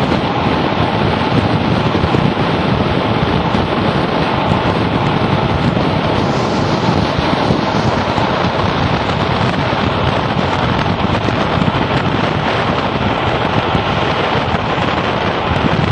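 Steady wind rushing over the microphone at the open window of a moving carriage, over the running noise of the diesel-hauled train.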